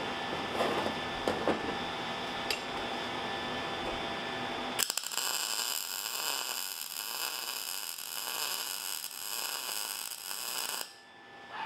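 A few light clicks as a C-clamp and steel ring are handled. Then, about five seconds in, a MIG welder's arc strikes and runs steadily for about six seconds as the ring is welded, and it cuts off about a second before the end.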